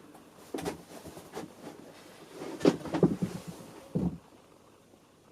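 A small tool box and the tools in it being handled: a string of short knocks and clatters, the loudest about three seconds in, the last about four seconds in.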